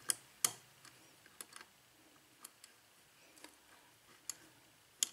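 Light metallic clicks and ticks of a hook pick probing and lifting the pins inside an Ilco KIK pin-tumbler lock cylinder under tension, single-pin picking. About ten short clicks come at irregular intervals, a few louder ones at the start and near the end.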